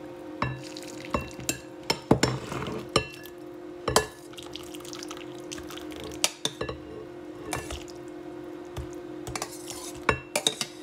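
Metal spoon scraping and clinking against a stainless steel saucepan as meatballs and broth are scooped out into a bowl, with splashes and drips of liquid. Sharp clinks come irregularly throughout, over a steady low hum.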